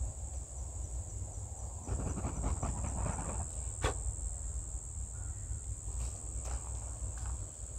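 Steady high-pitched chirring of insects, with a faint rapid ticking alongside it for the first few seconds. From about two seconds in come rustling and small clicks, movement in the dry leaf litter, then a single sharp click near four seconds.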